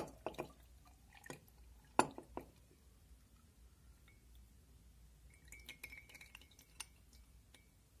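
A glass jar and a metal tea strainer clinking against a glass mug as a chamomile infusion is strained through it, with liquid dripping. A few sharp clinks come in the first couple of seconds, the loudest about two seconds in, and a second group of lighter taps with a faint ring follows past the middle.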